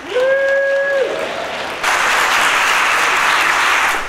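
Audience applauding after a public comment, the clapping swelling markedly louder about two seconds in. In the first second a single voice in the crowd holds one long cheer.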